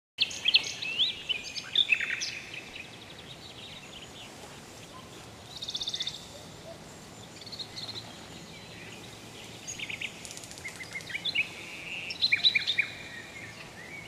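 Wild birds singing and calling over a steady background hiss: clusters of quick chirps and whistles at the start and again from about ten seconds in, with a fast trill about six seconds in.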